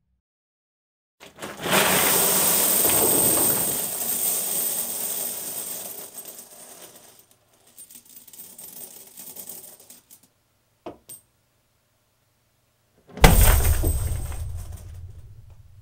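A mass of metal coins pouring out of a wooden chest in a long jingling clatter that thins out to scattered clinks. About twelve seconds in comes a heavy thud with a fresh burst of coins jingling, fading away.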